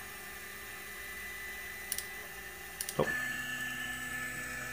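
Cetus3D 3D printer's stepper motors whining steadily as the printer homes its axes during initialization. There are two faint ticks about two seconds in. About three seconds in a new, higher whine starts as another axis begins to move.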